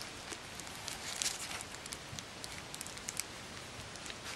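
Faint scattered light clicks and crackles over quiet room noise.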